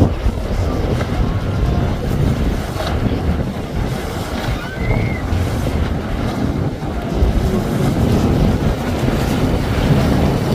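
Wind buffeting the microphone over the wash of choppy inlet water. Underneath, an Intrepid center-console boat's outboard engines run as it passes.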